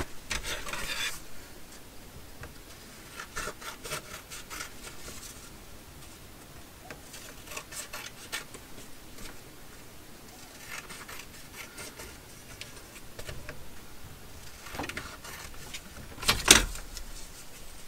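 Paper scraps being handled and torn into strips, a dry rustling and scraping that comes in short strokes. One louder, sharper noise comes near the end.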